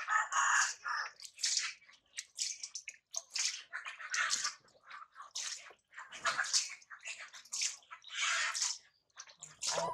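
Water splashing as a hand scoops it from a plastic basin to wash a baby monkey, in a string of short, irregular splashes and trickles.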